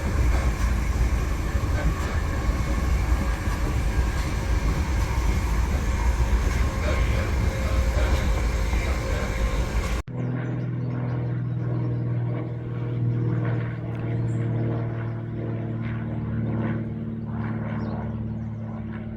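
Ride noise of a moving passenger train heard from inside: a steady, heavy rumble. About ten seconds in it cuts abruptly to a quieter, steady low hum with a held drone.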